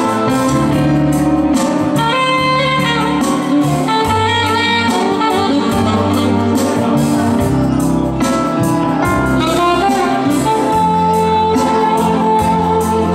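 Alto saxophone playing a melody of held notes over a live accompaniment with a bass line and a steady beat.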